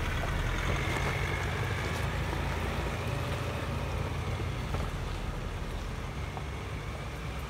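Ford Ranger Raptor pickup's engine and tyres on a rocky dirt track as it drives away, a low rumble that fades steadily as it pulls off.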